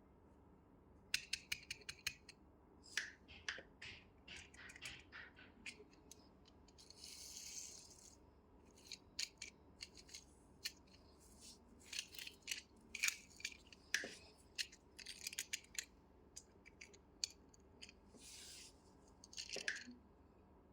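Hands handling small plastic toys and packaging, giving a run of sharp, irregular clicks and taps with a couple of brief rustling bursts.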